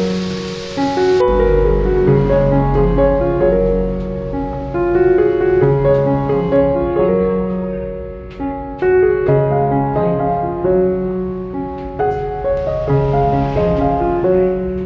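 Background piano music. A frying-pan sizzle under it cuts off about a second in.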